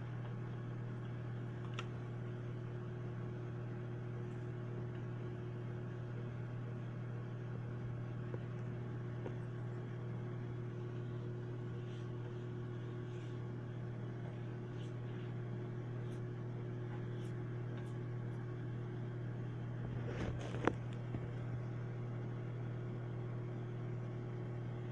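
Microwave oven running: a steady low electrical hum with its fan. A few faint clicks come about 20 seconds in.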